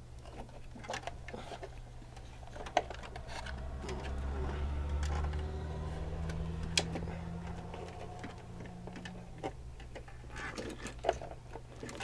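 Scattered light clicks and knocks of plastic and metal parts being handled as the Dell XPS 720's H2C liquid-cooling heatsink is worked back onto the CPU, over a steady low hum. A low rumble swells in the middle and fades again.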